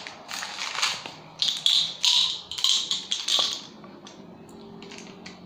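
Small plastic containers handled by hand, a pill bottle and a Tic Tac box: irregular taps and short rattling bursts, busiest in the middle, then quieter near the end.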